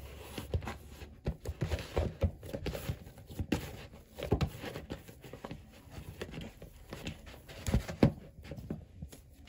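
Pizza dough being kneaded by hand in a plastic bowl: irregular dull thumps as the dough is pressed and pulled against the bowl, with the loudest thump nearly eight seconds in.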